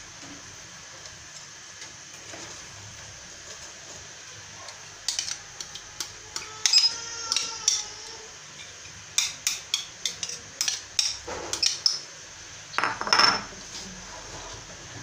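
Spatula clinking and scraping against a glass bowl while scooping and spreading orange glaze: a run of sharp clinks starting about five seconds in, one ringing briefly like struck glass, ending shortly before the close.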